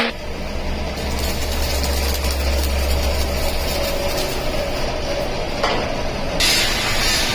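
A workshop machine's motor running with a steady low hum under mechanical noise; a louder hissing noise sets in near the end.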